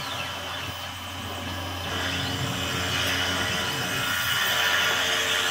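Tormach PCNC 770 CNC mill cutting a circular pocket in a wooden block with a 3/8-inch end mill: the spindle runs steadily, with whines that sweep up and down in pitch. It gets louder about two seconds in and again near the end.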